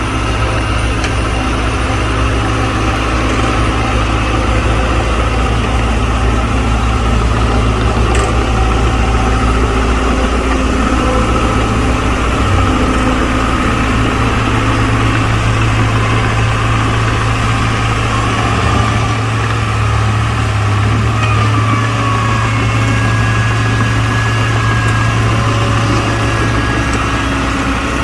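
Diesel engine of heavy earthmoving equipment running steadily at low revs.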